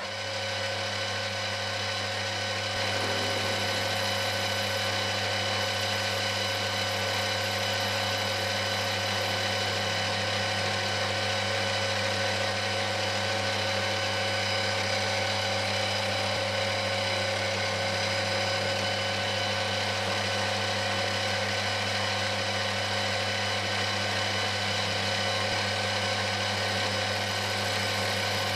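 A workshop machine's motor switches on suddenly and runs steadily, a constant low hum with a whine of steady tones above it.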